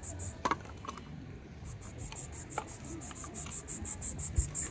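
An insect chirping in a fast, even, high-pitched pulse of about seven chirps a second. It breaks off just after the start and resumes near two seconds in, with a few light clicks about half a second in.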